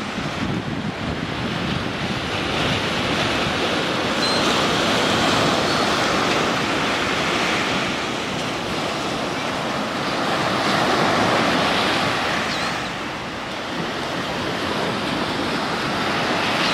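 Small Gulf of Mexico surf breaking and washing up a sandy beach, a steady rush that swells and eases as each wave comes in.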